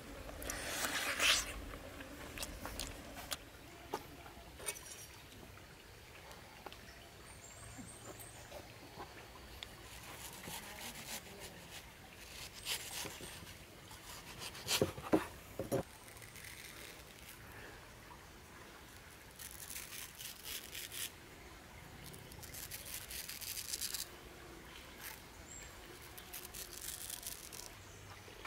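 Quiet eating and fruit-preparation sounds. First comes a bite into a soft jelly, then a knife slicing a ripe mango on a cutting board. A few sharp taps of the blade on the board come about halfway through, and soft scraping follows as the mango flesh is scored.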